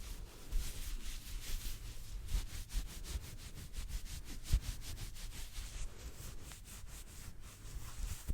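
Hands rubbing close to the microphone in quick, rhythmic strokes, several a second, with a soft bump about halfway through.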